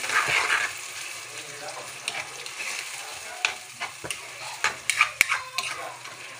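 Metal ladle stirring and scraping in a stainless steel wok of squid cooking in tomato sauce, over a steady sizzle. A louder burst of sizzling comes in the first half-second, then short scrapes and clicks of the ladle against the pan.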